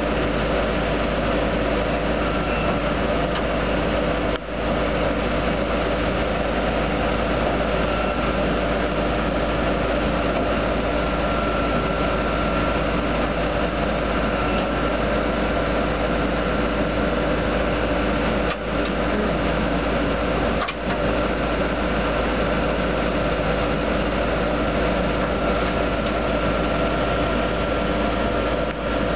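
Truck-mounted drill rig machinery running steadily at constant speed: a loud, unchanging engine hum with several steady tones over it, with a few momentary dropouts.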